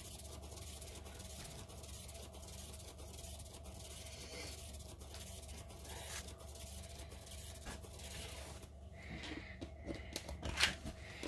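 Faint steady whir of a paint-pouring turntable spinning a painted tile, with a low hum underneath. The whir stops about nine seconds in as the spinner comes to rest, and a few light clicks follow.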